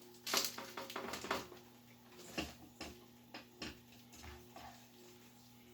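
Light kitchen handling noises: a quick run of clicks and rustles in the first second or so, then a handful of soft, scattered taps.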